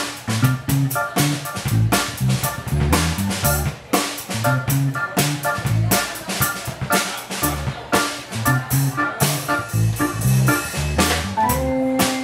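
A live instrumental trio of drum kit, electric bass guitar and electric organ playing a busy groove, with frequent drum hits over a moving bass line. A held organ chord comes in near the end.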